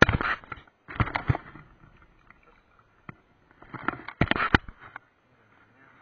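Close handling noise from a float tube's nylon mesh keepnet as a fish is put into it: rustling and knocks in three bursts, at the start, about a second in and a longer one around four seconds in.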